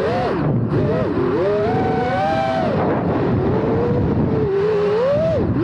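FPV quadcopter's electric motors and propellers whining, the pitch swooping up and down rapidly with throttle changes.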